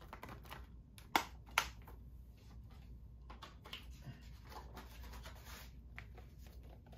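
Plastic Blu-ray disc case being handled: two sharp plastic clicks a little after a second in, then light scraping and rustling.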